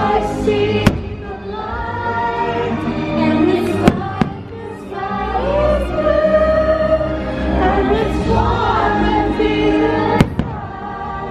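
Fireworks show soundtrack: orchestral music with a choir singing. Sharp firework bangs cut through it, one about a second in, two close together around four seconds, and one near the end.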